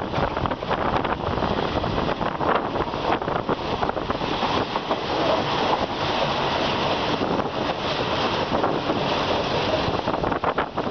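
A passenger train running on its track, heard from an open carriage window: a steady rumble with irregular clicks and knocks from the wheels on the rails, under heavy wind buffeting the microphone.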